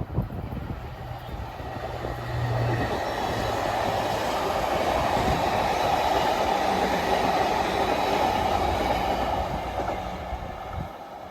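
A train passing by on its rails: the running noise builds about two seconds in, holds steady through the middle, and fades away near the end.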